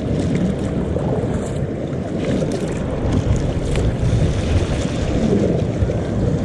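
Wind buffeting the microphone over the splash and wash of water along a plastic kayak's hull as it is paddled through shallow water.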